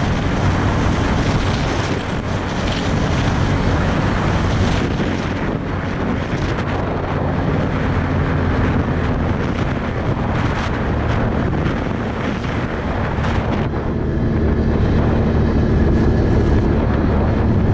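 Can-Am Outlander 1000 ATV's V-twin engine running steadily under way, with wind buffeting the microphone.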